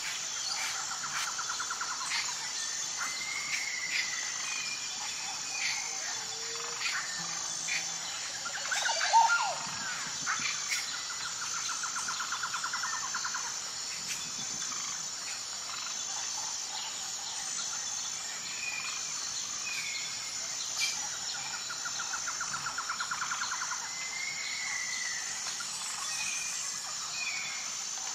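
Woodland ambience: various birds calling with short chirps and whistles, and a rapid trill that comes back about every ten seconds, over a steady high insect chirring. A louder bird call stands out about nine seconds in.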